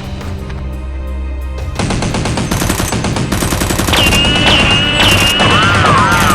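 Rapid automatic-gunfire sound effects break out about two seconds in over a low music drone. Wavering, whining tones, like ricochets or blaster effects, join the firing in the second half.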